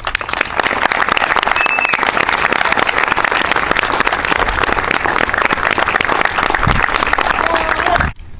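Audience applauding, a dense steady clapping that stops abruptly near the end.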